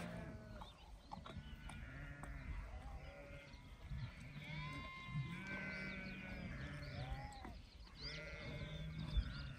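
A flock of sheep bleating, many calls overlapping, some low-pitched and some high-pitched.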